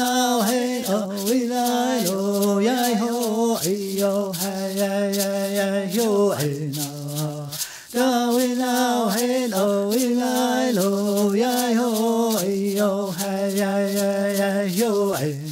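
One voice singing a slow chant of held notes over a steadily shaken rattle. The phrase repeats, each time settling on a lower note, about six seconds in and again near the end.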